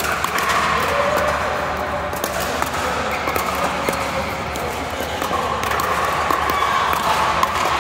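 Pickleball paddles striking a hard plastic ball in rallies, sharp pops coming at uneven intervals, some from other courts.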